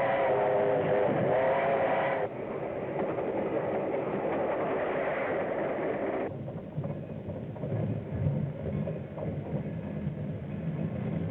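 Steam locomotive whistle blowing a chord-like tone for about two seconds over the noise of a moving train. The train noise continues and drops suddenly to a lower rumble about six seconds in.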